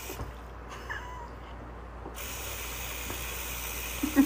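Bathroom sink faucet running a thin stream of water onto a cat lying in the basin: a steady hiss that grows louder about two seconds in. A faint short cat sound comes about a second in, and right at the end loud, quick pulsing sounds begin.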